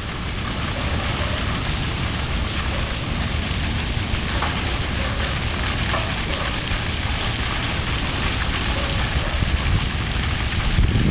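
Steady rushing of water cascading down rockwork into a pool.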